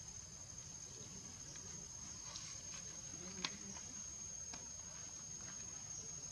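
Faint steady high-pitched insect drone, with soft scattered clicks and one sharper click about three and a half seconds in.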